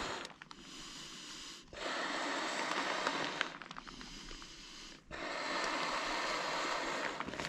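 A person blowing up an inflatable sleeping pad by mouth: two long, hissing breaths into the valve, each after a quieter intake of breath.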